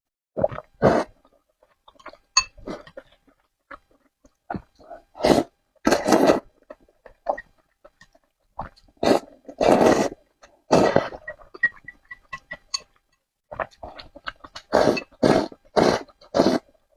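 Close-miked eating sounds: a series of loud, short slurps of noodles, with quieter chewing and small mouth clicks between them.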